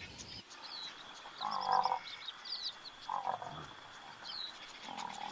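Bush ambience: frogs croaking in short calls about one and a half, three and five seconds in, over scattered bird chirps and a thin steady insect drone.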